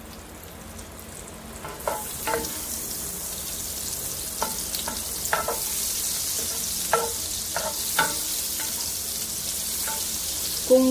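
A pat of butter sizzling and foaming in hot oil in a stainless steel pan. The sizzle swells about two seconds in and stays steady, with light knocks and scrapes of a spatula against the pan as it pushes the butter around.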